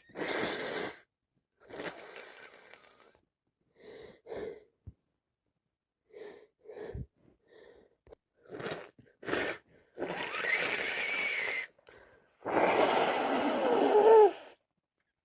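A woman with a cold sniffing and taking short and then long, wheezy, gasping breaths: a sneeze build-up, ending in a loud sneeze near the end.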